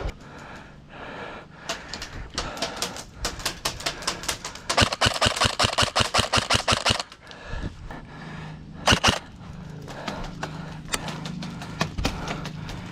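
Airsoft guns firing: scattered single shots and short strings of sharp clicking pops, with one fast run of about ten shots a second between roughly five and seven seconds in. A single louder crack comes about nine seconds in.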